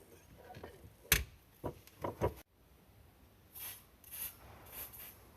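Hand-work sounds: a few sharp knocks and clicks, then, after an abrupt cut, three short rubbing or scraping strokes about half a second apart.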